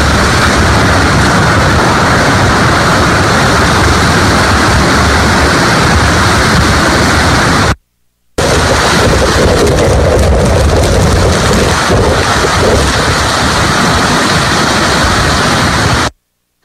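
Hurricane Irma's winds and heavy rain: a loud, steady rushing noise. It cuts out briefly about eight seconds in and again just before the end.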